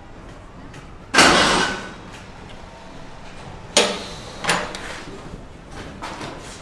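Clunks and knocks from an old car: a loud, noisy burst lasting under a second about a second in, then a sharp clunk a little before four seconds and a softer one half a second later, fitting the driver's door opening and shutting.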